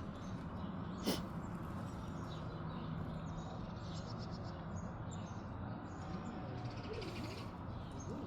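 Faint bird chirps over a steady background hum, with one sharp click about a second in.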